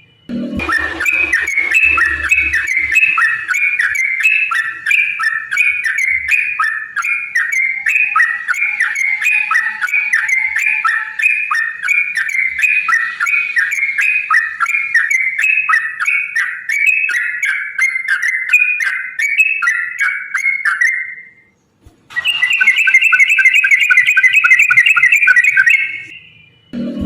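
Yellow-vented bulbul (trucukan) singing a long, rapid run of repeated chattering, whistled notes. The run lasts about twenty seconds, breaks off briefly, then starts again for a few seconds.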